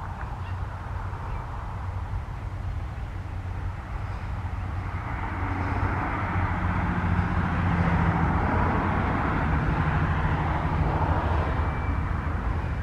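TasRail TR class diesel-electric locomotives hauling a freight train as it approaches. A steady low engine drone grows louder and fuller as the train nears, with the engine's pitched hum coming through about halfway in.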